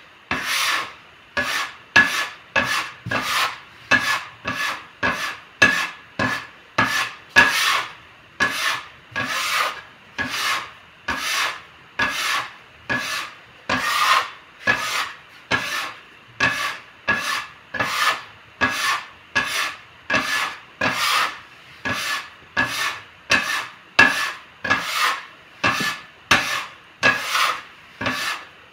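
Metal bench scraper scraping and chopping across a wooden pastry board in a steady rhythm of about one and a half strokes a second, gathering crumbly egg-and-flour pasta dough together.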